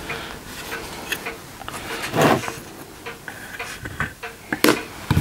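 Top half of a melamine-faced chipboard casting flask being handled and set down onto the bottom half over its locating pins: a few wooden knocks and clunks, the loudest about two seconds in and two more near the end.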